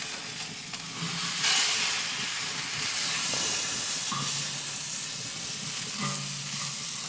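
Steady hissing and crackling sizzle from the charcoal and wood fire burning in a vertical smoker, growing louder about a second and a half in.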